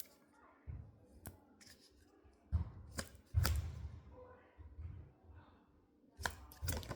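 Tarot cards being handled and laid down: a few sharp snaps and taps of card stock, with low bumps of handling noise in between.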